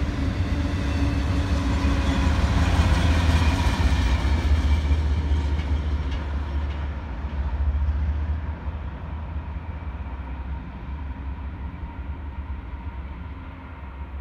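Freight train with a rear diesel locomotive rolling past: a deep, steady rumble of engine and wheels on rail, loudest a few seconds in. It drops off sharply about eight seconds in and fades as the train pulls away.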